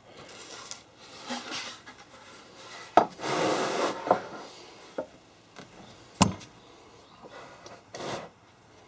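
Hand tool working against the wood of an old tool chest: intermittent scraping and rubbing with a few sharp knocks, a longer scrape about three seconds in and the loudest knock about six seconds in.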